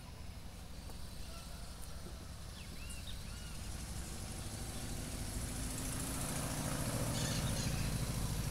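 A motor vehicle's engine running, a low hum that grows steadily louder, with a few short bird chirps about two to three seconds in.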